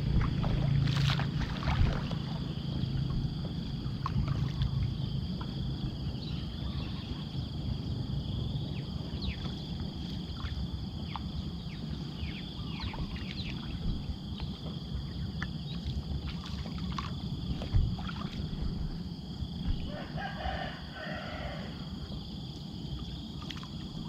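A rooster crowing once, in two parts, about twenty seconds in, over a steady high-pitched insect drone, low rumbling noise and scattered small clicks.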